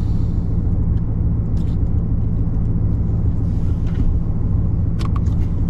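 Steady low hum of an idling vehicle engine, with a few light clicks near the end.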